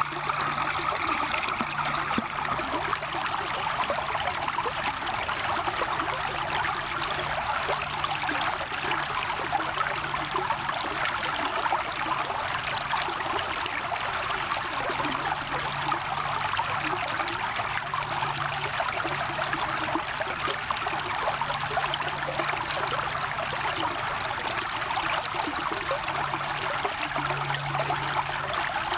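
Shallow, partly frozen stream running over rocks through open water between shelves of ice: a steady rushing and splashing of water.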